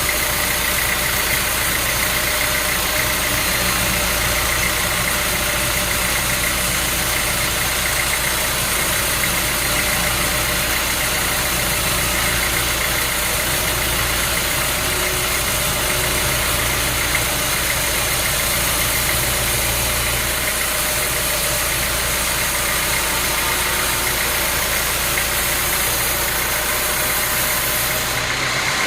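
Sawmill machinery running steadily: a constant engine hum with a steady high whine over it.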